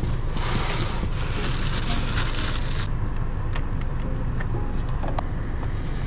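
Handling noise inside a car: a rustling hiss for the first three seconds or so, then a run of small clicks and creaks as plastic trim pieces, packaging and the suede steering wheel cover are handled, over a steady low rumble.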